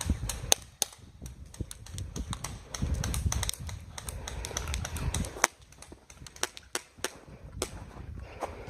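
A run of irregular sharp clicks and ticks, several a second, over low rumbling handling noise.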